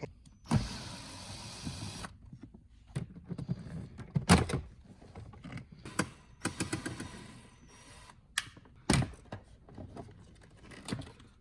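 Handling noise: a brief rustle starting about half a second in, then irregular knocks and clicks, the loudest just after four seconds and near nine seconds.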